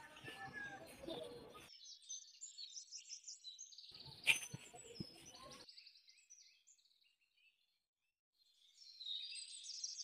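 Faint birdsong: small birds chirping in short high calls, with one sharp click about four seconds in. The sound cuts out completely for about three seconds, then the chirping returns near the end.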